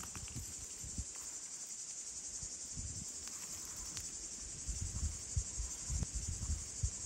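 Steady high-pitched chirring of insects throughout, with soft rustles and light knocks of dry twigs being laid in a stone fire ring, busier in the second half.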